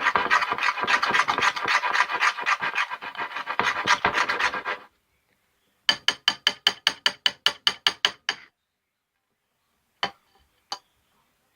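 Homemade toothpaste-and-soap slime clicking and squelching as it is squeezed and pulled in the hands and fingers. A dense, crackly run of clicks lasts about five seconds, then comes a quick, even series of about six clicks a second, then two last clicks near the end.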